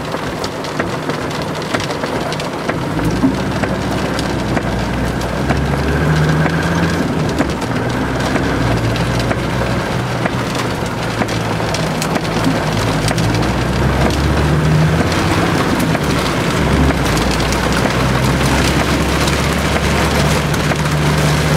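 Heavy rain drumming on a car's roof and windscreen, heard from inside the cabin as a dense patter of drops. Underneath, the car's engine runs from a few seconds in, its pitch stepping up and down as the car drives along.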